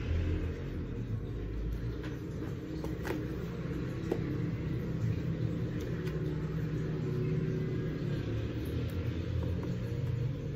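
A steady low rumble, with a few faint ticks.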